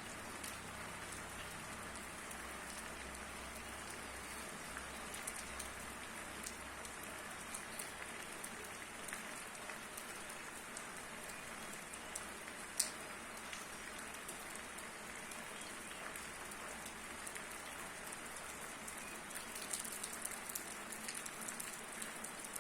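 Steady rain falling, with scattered individual drops ticking sharply, one louder drop about thirteen seconds in.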